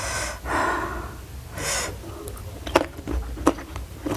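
Close-miked breathing during a meal: a loud breath out about half a second in and a sharp inhale about a second later. A few wet mouth clicks of chewing follow in the second half.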